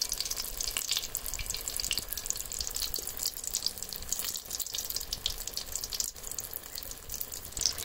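Vegetable spring rolls deep-frying in hot oil: a steady sizzle with many quick crackling pops.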